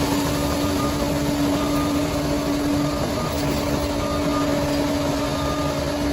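Bulldozer's diesel engine running steadily: a continuous drone with a held hum, and brief faint higher whines coming and going.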